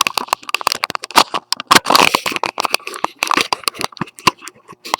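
Handling noise: a dense, irregular run of sharp clicks and crackles as things are moved about and repositioned close to the microphone.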